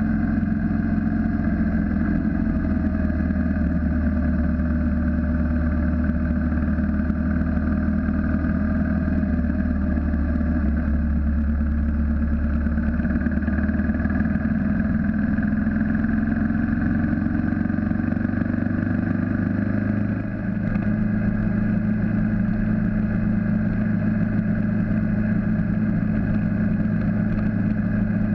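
BMW G650GS single-cylinder motorcycle engine running under way, its pitch slowly rising as it gathers speed. About two-thirds of the way through there is a brief dip in level and the pitch drops, as on an upshift, and then it runs steadily again.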